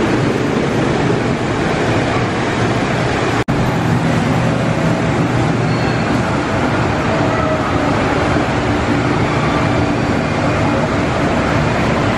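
Loud, steady mechanical din of running kiddie amusement rides, a rolling, rumbling noise like a small train, which drops out for an instant about three and a half seconds in.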